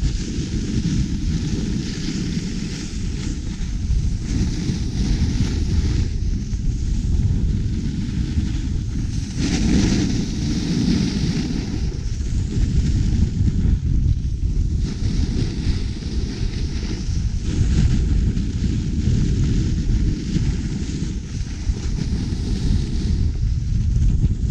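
Wind buffeting an action camera's microphone at speed down a ski slope, a steady heavy rumble, with a hiss of edges carving on packed snow that swells and fades every few seconds through the turns.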